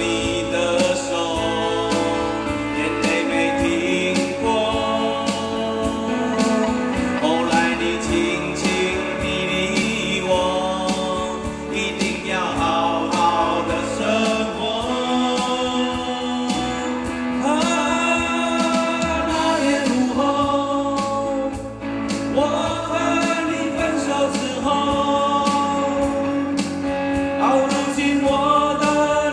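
Live band music: men singing over acoustic guitars and an electric bass guitar.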